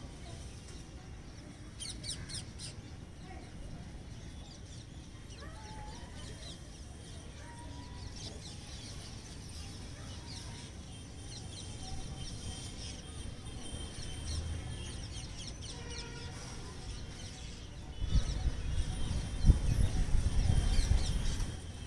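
Outdoor ambience of birds calling: short high chirps and a few clucking calls over a low steady rumble. The rumble grows louder a few seconds before the end.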